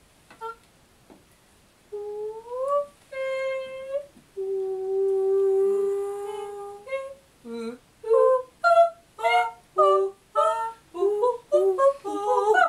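A woman singing without words: after a quiet start with a faint click, her voice glides upward and holds two long notes, then breaks into a run of short clipped notes, about two a second, that climb in pitch near the end.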